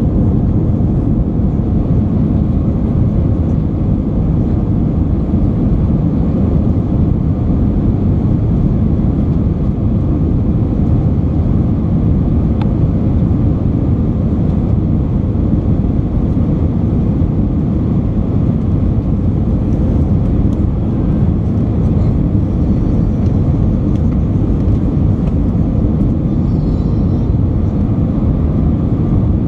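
Cabin noise inside a British Airways Airbus A319 climbing out after takeoff: the jet engines and the rush of air over the fuselage make a steady low rumble with no breaks, heard from a window seat over the wing.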